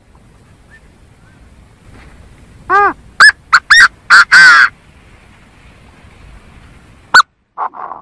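Chinese francolin (gà gô) calling: about three seconds in, a run of loud harsh notes, five short and clipped followed by a longer drawn-out one, then a single short note near the end.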